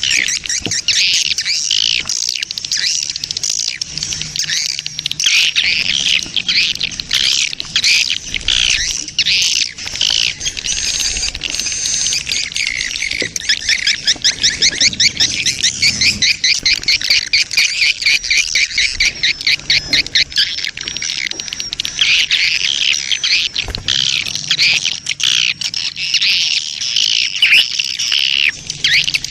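A colony of edible-nest swiftlets twittering and chirping, dense and high-pitched, with a fast, evenly pulsed trill in the middle. It is a swiftlet lure call recording of a colony in breeding mood, played to draw swiftlets in.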